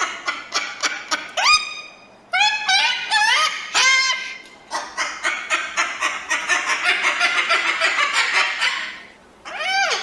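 Crested cockatoo calling: short sharp notes, then harsh calls that rise in pitch, followed by several seconds of fast chattering and a final screech near the end.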